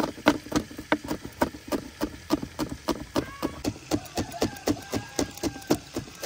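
Knife chopping green chillies on a cutting board: a steady run of sharp chops, about three a second.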